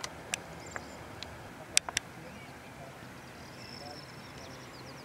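Steady outdoor background with about six sharp clicks in the first two seconds, then faint bird chirps and a thin high warble.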